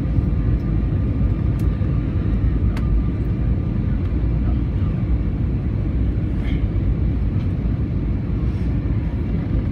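Steady low rumble of airliner cabin noise, the jet engines and rushing airflow heard from inside the cabin, with a faint steady hum over it.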